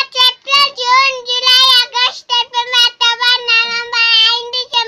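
A young girl singing in a high voice, short phrases held on a nearly steady note.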